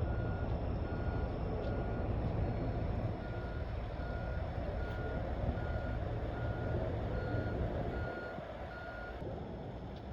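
Reversing alarm of a heavy vehicle beeping steadily, a little over once a second, over the low running of its engine. The beeping stops about nine seconds in.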